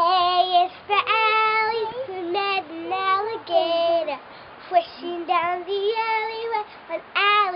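A child singing a children's song solo, in a high voice with short gliding notes.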